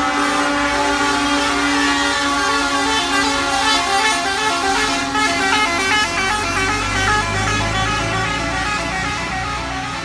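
Several truck horns sounding together in long, continuous blasts. Their pitches shift in steps, as the trucks drive past.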